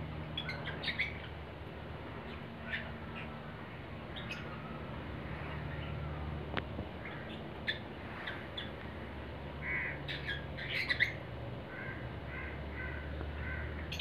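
Lovebirds calling: short, sharp squawks and chirps scattered through, coming thickest a little past two-thirds of the way in, then a quick run of short repeated notes.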